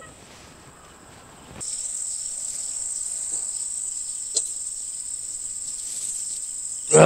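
Steady, high-pitched chirring of insects that comes in abruptly about one and a half seconds in and holds evenly, with one faint click around the middle.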